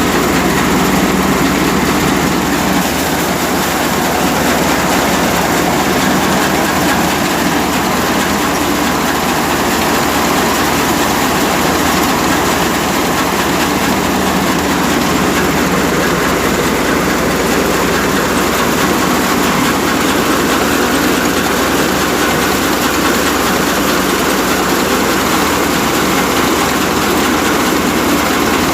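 Wheat threshing machine running steadily, a loud continuous engine and machine noise.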